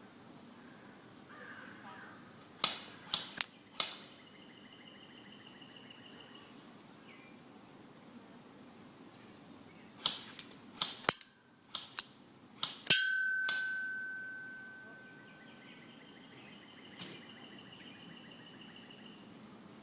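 KingArms M4 airsoft rifle firing single shots: four sharp cracks in quick succession, then after a pause about eight more. One hit near the end of the second group leaves a clear ringing tone that fades over about two seconds, a BB striking the metal target hard enough to dent it.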